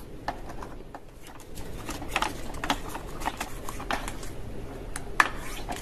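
Plastic clicks and rattles as foam darts are handled and pushed into the dart belt of a toy minigun-style foam dart blaster. The clicks are irregular, about one or two a second.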